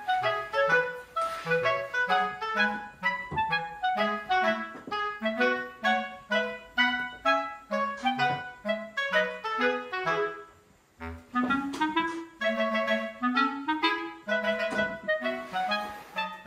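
Playful background music in short, bouncy notes over a bass line, pausing briefly about ten seconds in and then starting again.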